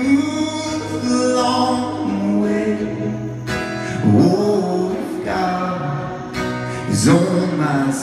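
Live band performance: a male voice sings long held notes over strummed acoustic guitar, with a new sung phrase starting about four seconds in and another near the end.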